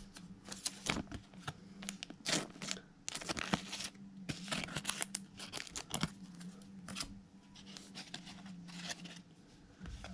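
Baseball trading cards and soft plastic card sleeves being handled: a run of short rustles, swishes and crinkles as cards are slid into sleeves and sorted, over a faint steady low hum.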